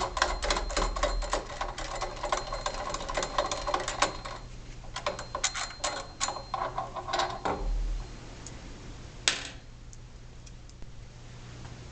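Rapid metallic clicking and rattling from hand work on small steel parts and tools, dense for about four seconds, then a few scattered clicks and one sharp click near the end. A steady low hum runs underneath.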